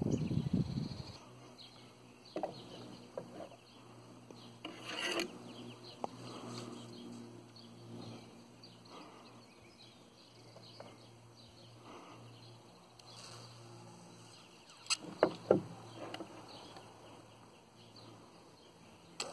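Iron wire and a steel rod mandrel being handled in a wooden coil-winding jig: faint scraping and rubbing with scattered small clicks, and a quick cluster of sharper knocks about fifteen seconds in. A brief low rumble fills the first second.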